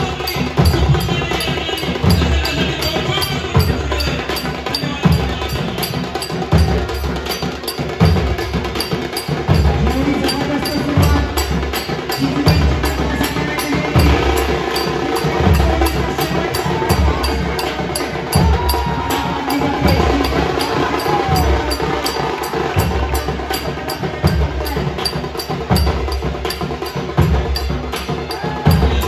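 Live folk drumming for a Konkan palkhi dance: a deep drum beat about every second and a quarter, over a fast, even run of sharp ticks.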